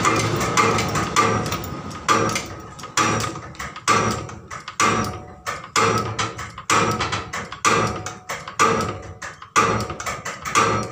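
Hydraulic floor jack being pumped by its long handle: a sharp, ringing metallic clank on each stroke, about once a second.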